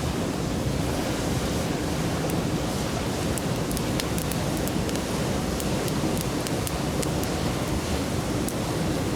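Mountain stream babbling steadily, with a wood campfire crackling in small, sharp pops scattered throughout.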